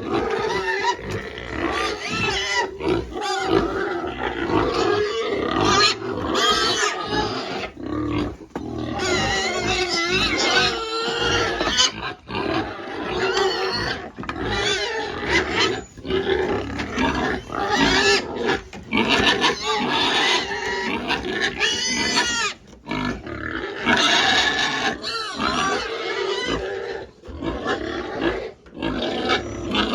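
Piglets squealing and grunting, many at once, in an almost unbroken din of high, wavering squeals over lower grunts.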